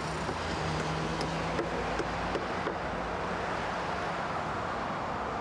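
Construction-site background noise: a steady rumble with a low engine hum during the first couple of seconds and a few faint knocks.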